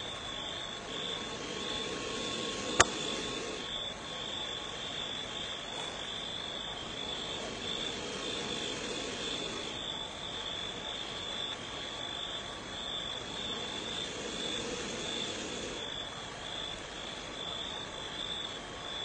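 Night insects trilling steadily in a high, even, finely pulsing band, with one sharp click about three seconds in.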